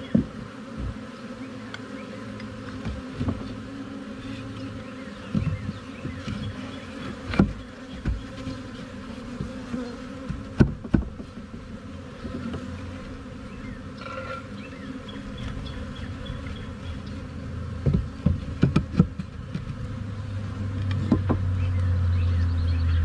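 Honeybees buzzing steadily around an open hive, with a few sharp knocks here and there; a low rumble builds near the end.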